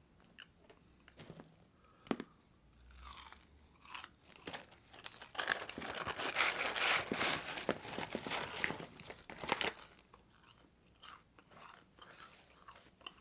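Close-miked crunchy chewing of a mouthful of fast-food fries, loudest and densest from about five to ten seconds in, with scattered small clicks and mouth sounds before and after.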